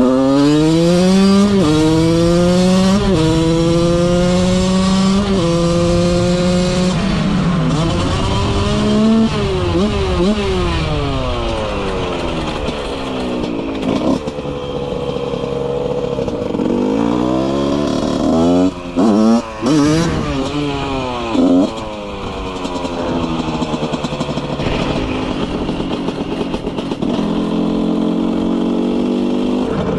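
Husqvarna 125 two-stroke motorcycle, fitted with an HTM head, a Keihin 36 carburettor and a CR 7T cylinder, accelerating hard through the gears: the engine note climbs and drops back at each upshift several times in the first seven seconds. It then eases off and picks up again, with a run of quick throttle blips around the middle, and settles into a steadier run near the end.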